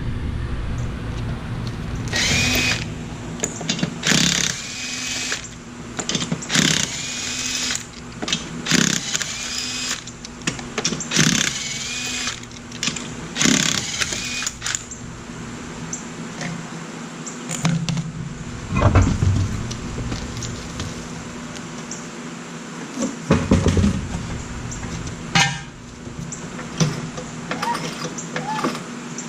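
Power tool, likely an impact wrench, run in a rapid series of short bursts of about half a second each with a whining spin-up tone, loosening wheel lug nuts. Later come a few separate knocks and thuds.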